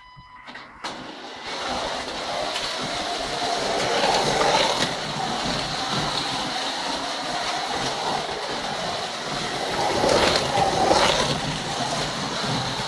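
Scalextric Digital slot cars running on the plastic track: a steady whirring of small electric motors and rolling wheels that sets in about a second and a half in and swells as cars pass close, around four seconds in and again near ten seconds.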